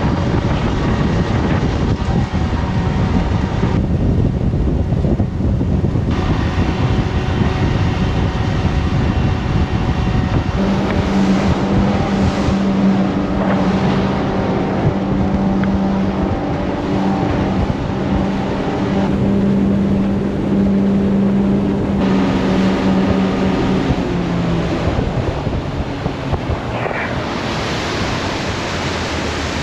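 Speedboat engine running at speed, with water rushing past the hull and wind on the microphone; the engine's steady hum grows stronger partway through.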